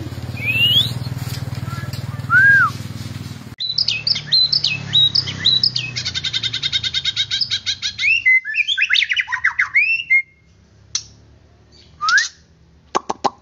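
White-rumped shama singing: two single whistles over a low steady hum, then, after an abrupt change about three and a half seconds in, a dense run of varied whistled phrases with a fast trill and sweeping notes. It tails off into a few sparse calls and sharp clicks near the end.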